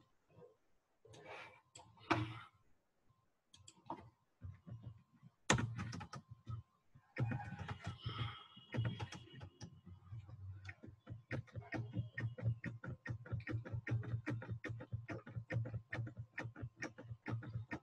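Computer keyboard typing: a few scattered keystrokes at first, then steady rapid key presses from about seven seconds in, about four a second. A faint steady whine runs underneath.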